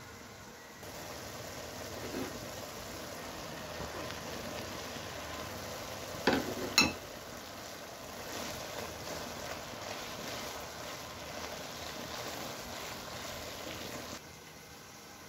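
Mashed carrots and chopped herbs sizzling in oil in a pan as a wooden spoon stirs them, with two sharp knocks close together a little past the middle.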